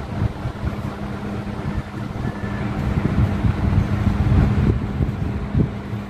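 Wind buffeting the microphone, a low uneven rumble that swells in the middle, over a steady low hum.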